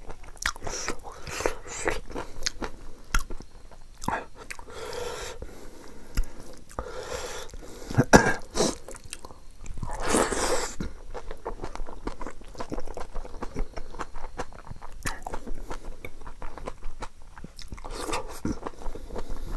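Close-up sounds of a person eating with the hands: wet chewing and lip smacking of curry and rice, with many short clicks and some crunchy bites.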